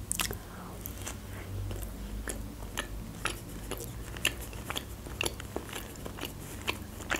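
A person chewing a mouthful of open sandwich with the mouth closed, close to the microphone: soft, irregular wet mouth clicks, two or three a second.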